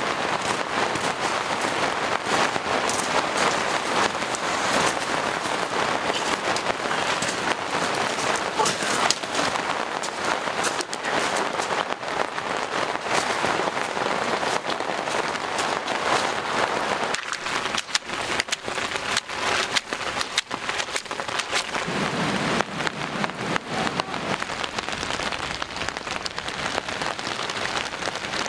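Heavy rain falling steadily, with a dense run of sharp, close drop hits.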